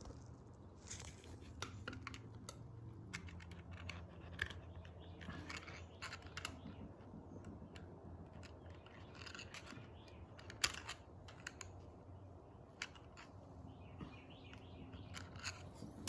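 Irregular small clicks, taps and scrapes of hands handling a vintage metal sewing machine and its parts while oiling it, over a faint steady low hum.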